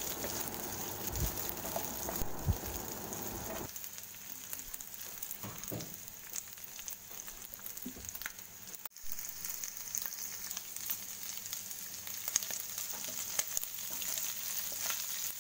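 Boiled prawns sizzling in coconut oil in a non-stick frying pan while a spatula stirs them, with scattered scrapes and taps. The sizzle breaks off for an instant about nine seconds in.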